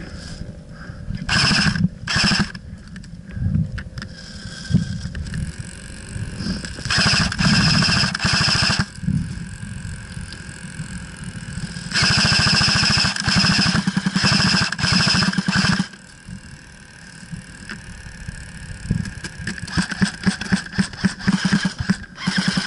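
Airsoft electric guns firing on full auto: a short burst about a second and a half in, another about seven seconds in, a long burst of about four seconds starting around twelve seconds, and a run of rapid short bursts near the end. Each burst is a fast buzzing rattle with the whine of the gun's motor and gearbox.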